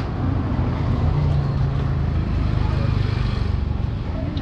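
A motor vehicle's engine running on the street close by, a low rumble that builds about a second in and eases off near the end, as of a vehicle passing.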